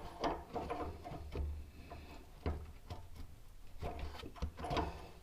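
Scattered clicks, knocks and low bumps of a hand tool working on a metal fitting.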